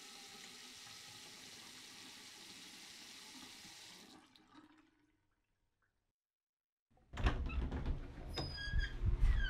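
A faint steady hiss fades out, then after a couple of seconds of silence water starts running loudly in a bathroom, with a few clicks and knocks.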